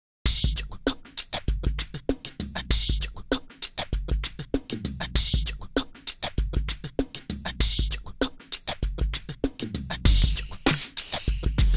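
Music with a busy, steady drum beat and deep bass, starting suddenly a fraction of a second in.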